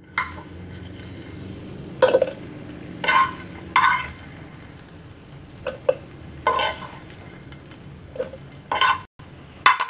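A utensil tapping and scraping against a frying pan as sautéed chilies are knocked out into a plastic blender cup: about ten short, sharp clinks at uneven intervals.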